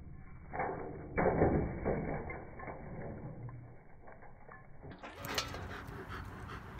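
Stainless steel dog bowl clattering and scraping over the ground as a German Shepherd paws and knocks it about: a run of uneven metallic knocks, loudest a little over a second in.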